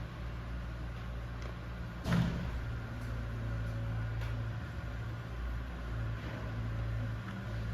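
Steady low mechanical hum, with a single sharp knock about two seconds in and a few faint clicks.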